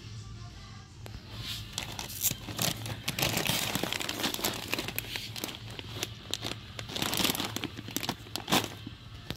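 Plastic bag of Canet Chip dry cat food crinkling and rustling as it is handled, starting about a second in, with many sharp crackles over a steady low hum.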